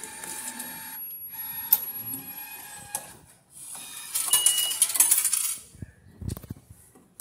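MetroCard vending machine at work: its bill acceptor whirs with a steady whine as it draws in the dollar bills, then about four seconds in a louder mechanical rattle and a short beep as the MetroCard is dispensed. A dull thump follows near the end.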